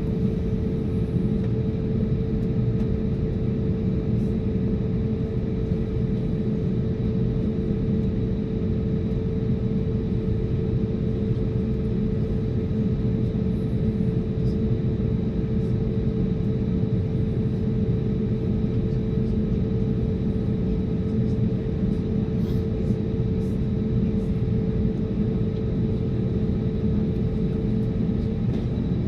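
Airbus A320neo's CFM LEAP-1A engines and airframe heard from inside the passenger cabin, a steady rumble with a constant hum running under it.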